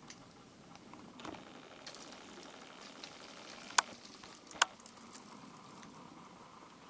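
Scattered small snaps and crackles of bare twigs being broken and bitten by a foraging Japanese macaque, with two sharp, louder snaps a little under a second apart near the middle.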